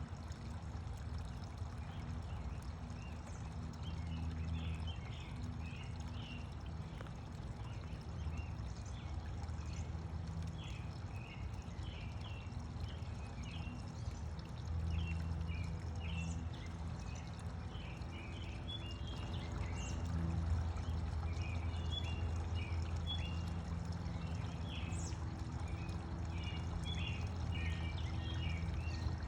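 Birds chirping in many short, quick calls throughout, over a steady low rumble with a faint hum.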